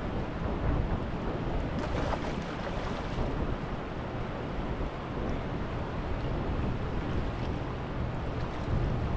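Wind buffeting the microphone over the steady rush of fast river current.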